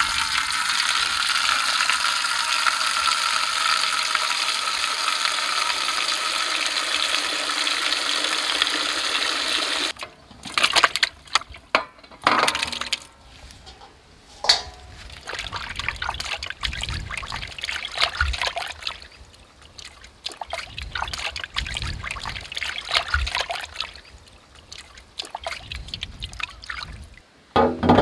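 Water pouring from a pipe into a large aluminium pot: a steady rush for about ten seconds that stops suddenly. Then irregular splashing and sloshing as tomatoes are washed by hand in the water, with a brief knock near the end.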